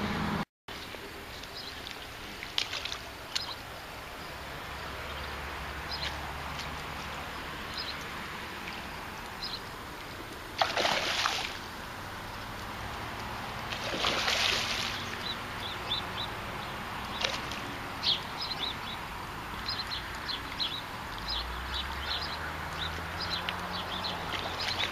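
A hooked carp splashing and sloshing at the surface while it is played toward a landing net, with two louder splashes about ten and fourteen seconds in. Under it run a low steady hum and scattered short high chirps.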